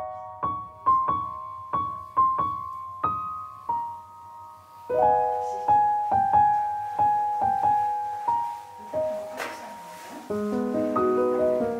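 Background piano music: a slow melody of single struck notes that ring and fade, turning into fuller chords about ten seconds in.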